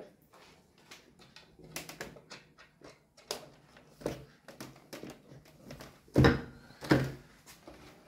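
Scattered clicks and knocks of plastic parts and tubing being handled inside an RO water purifier's housing, with two louder thumps about six and seven seconds in.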